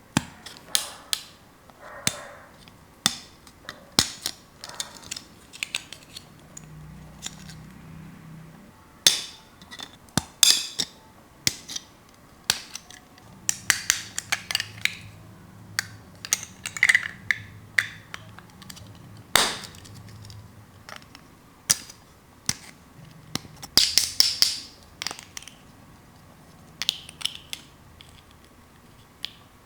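Small plastic toy pieces being handled: an uneven string of sharp clicks, taps and clacks, with a few longer rattling scrapes.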